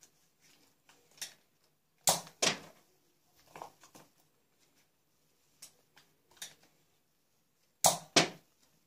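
Sharp plastic clacks from a toy foam-dart blaster, in two pairs about a third of a second apart, one about two seconds in and one near the end, with fainter knocks between.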